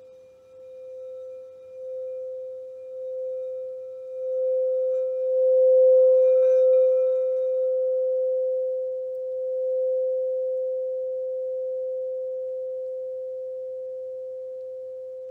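Frosted quartz crystal singing bowl played by circling a mallet around it: one steady pure tone that swells in waves over the first six seconds or so, then rings on alone, slowly fading.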